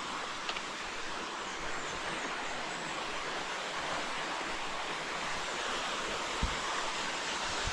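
Waterfall rushing: a steady, even roar of falling water. Two soft low thumps near the end.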